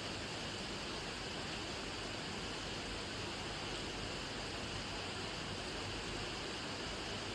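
Steady rainfall: an even, unchanging hiss with no separate drops standing out.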